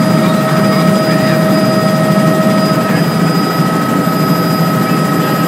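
Helicopter in cruising flight heard from inside the cabin: a steady engine and rotor drone with a constant high whine running over it.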